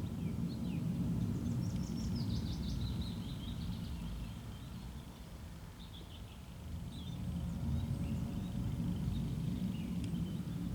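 Deep, unexplained rumble that swells, eases about halfway through and swells again, which the listener says is neither a jet nor thunder and makes the ground not shake. Birds chirp over it.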